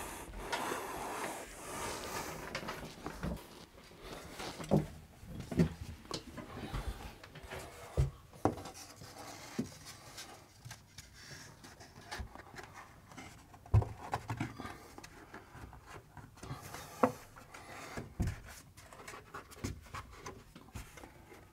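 Handling noise as a long board is pressed by hand against a wall: scattered sharp knocks and soft rubbing of the board on the wall, with a man breathing, plainest in the first couple of seconds.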